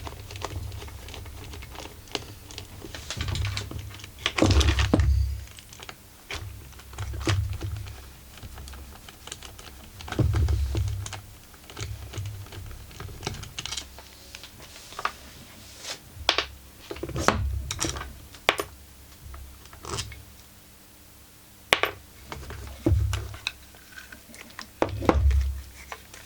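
Hand tools and metal parts clicking, knocking and scraping against a chainsaw's crankcase: irregular sharp clicks with dull low thuds in clusters.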